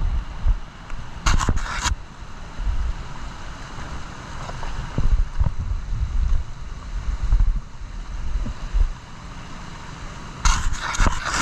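Motorcycle riding along a wet offroad trail, heard mostly as wind buffeting the microphone with low rumbling gusts. Two short hissing bursts come about a second in and near the end.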